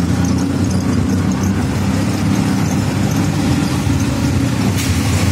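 Auto rickshaw engine running steadily as it drives, heard from inside the open cabin: a loud, even low drone.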